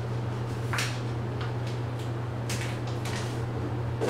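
Steady low hum with a few brief, soft rustling noises.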